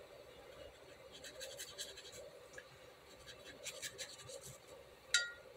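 Faint scratching of a watercolour brush stroking across textured Arches 140 lb watercolour paper, in two spells of short strokes. Near the end there is one sharp click with a brief ring.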